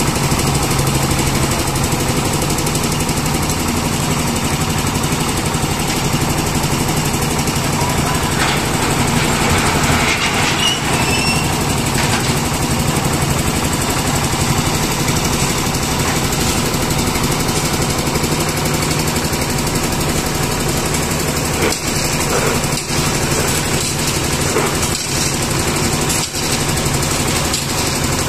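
Engine-driven site concrete mixer, with the material hoist's machinery beside it, running continuously at a steady pace during slab concreting: a loud unbroken mechanical drone with a low hum.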